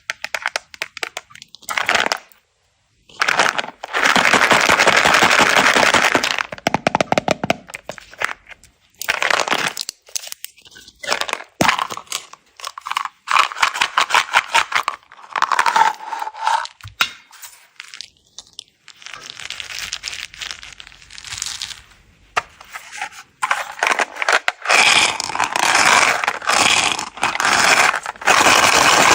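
M&M's candies being poured out of their containers, the hard sugar shells clattering against each other and the surface in dense rattling streams. There are several pours a few seconds long, separated by short pauses.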